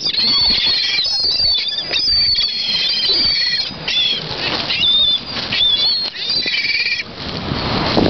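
A flock of gulls flapping close around the microphone and giving many short, high, wavering cries one after another.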